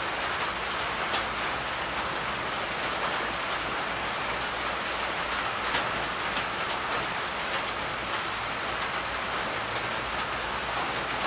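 Steady rain falling, heard as a continuous even hiss, with a few faint clicks.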